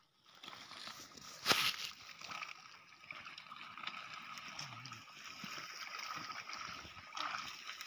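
Muddy ditch water sloshing and gurgling as people wade chest-deep and feel for fish by hand, with one sharp splash about a second and a half in.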